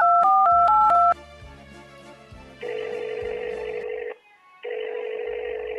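Touch-tone phone dialling: a quick run of dual-tone keypad beeps in the first second, then the ringing tone sounds twice, each about a second and a half long, meaning the call is ringing through and waiting to be answered. Soft background music plays underneath.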